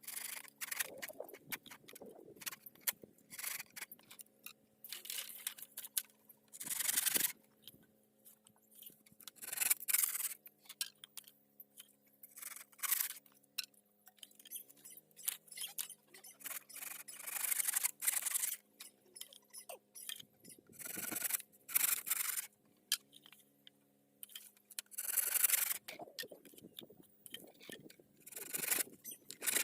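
Irregular rasping scrapes and rubbing strokes, as of a hand tool working wood, coming every second or two.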